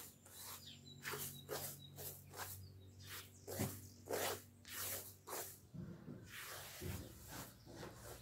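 Dry grains swept and pushed by hand across a large aluminium tray: a run of short swishing rattles, about two a second, with a longer sweep about six seconds in.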